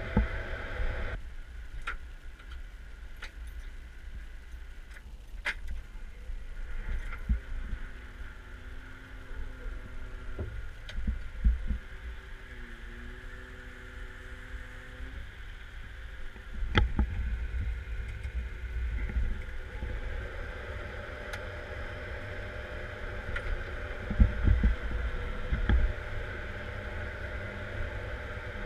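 Caterpillar 140M Series 2 motor grader heard from inside its cab: the diesel engine runs with a steady low rumble while the blade is worked, with faint whining tones that step in pitch and scattered knocks and clunks, a cluster of louder thumps a few seconds before the end.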